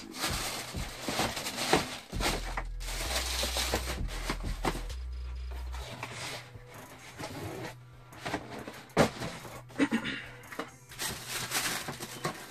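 Tissue paper rustling and cardboard shoe boxes being handled: lids and boxes shifted and stacked, with irregular rustles and occasional sharp knocks, one louder knock about nine seconds in.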